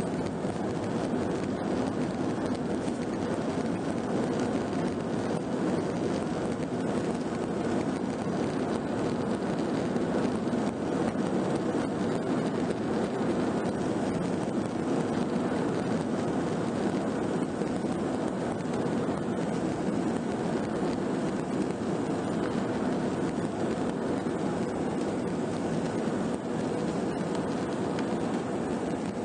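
Airbus A319 airliner's jet engines and rolling noise heard from inside the cabin: a loud, steady roar that swells in the first second, then holds as the aircraft runs along the ground.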